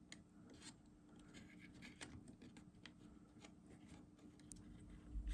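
Near silence with faint small clicks and rubbing: fingers working a rubber drive belt onto the pulleys of a personal cassette player's mechanism. A low rumble comes in near the end.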